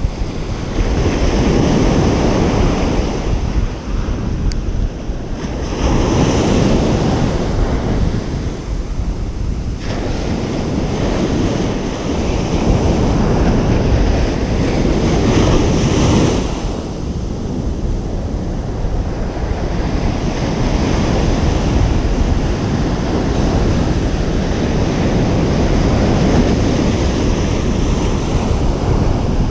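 Ocean surf breaking on a beach, waves swelling and washing in every several seconds over a constant low rumble, with wind buffeting the microphone.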